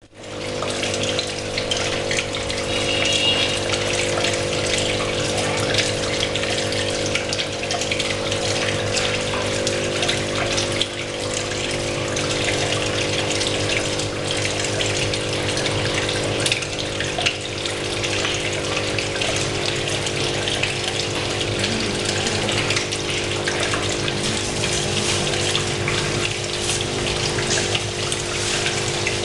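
Aquarium air stone and pump running: a steady bubbling, splashing water noise over a constant electric pump hum.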